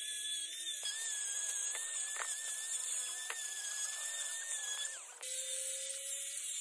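High-speed rotary power carving tool whining steadily, grinding into wood from about a second in. Near five seconds its pitch sags, the sound breaks off sharply, and a lower steady whine follows.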